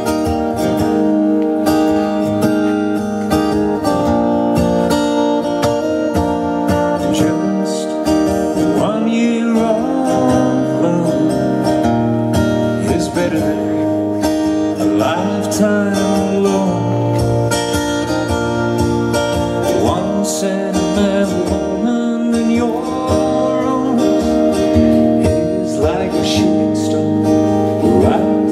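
Acoustic guitar music, strummed and plucked, with a steady, unbroken flow of notes.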